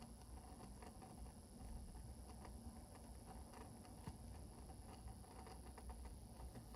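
Near silence: faint, scattered light clicks from a small diecast toy car being handled, over a low steady rumble.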